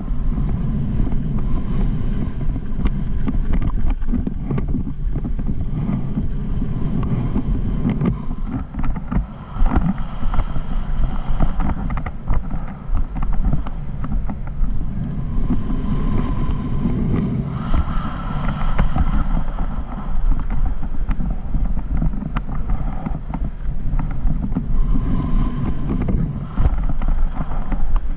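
Wind rushing over a helmet-mounted camera's microphone on a fast mountain-bike descent, with knocks and rattles as the bike runs over bumps on a dirt trail.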